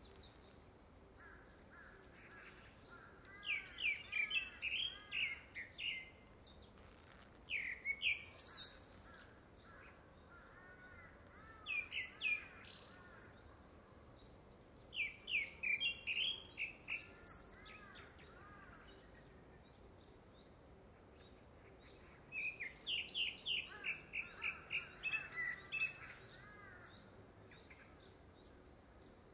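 Male gray-backed thrush singing: about five phrases, each a quick run of short whistled and twittering notes, with pauses of a few seconds between them. The uploader takes it, from the time of year, for courtship song ahead of a second brood.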